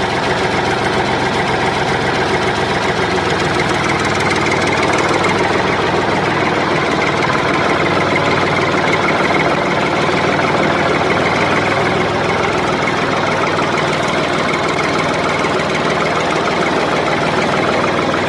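Tractor engine running steadily at a low idle-like chug. It is a recorded engine sound rather than the toy itself, which is pulled along by a string.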